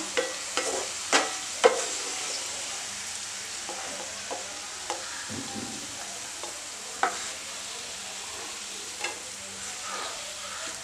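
Sliced onions sizzling in hot oil in a non-stick frying pan, fried soft and golden. A wooden spatula scrapes and taps against the pan every second or two as the onions are scooped out.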